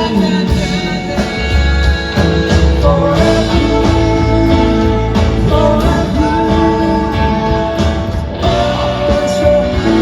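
Live rock band with guitar playing on under held vocal harmonies, loud and steady, with no lead lyric sung.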